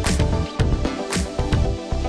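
Background music with a steady beat: deep bass hits and a bright, cymbal-like accent about once a second over sustained notes.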